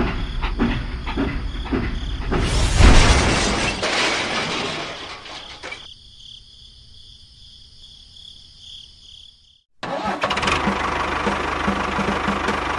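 An engine running with a regular knocking beat. It swells louder about three seconds in, then dies away to quiet, cuts to silence for a moment, and starts running again near the end.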